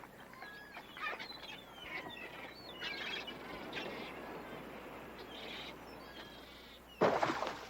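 Birds chirping with short rising and falling calls, and a brief, louder call near the end.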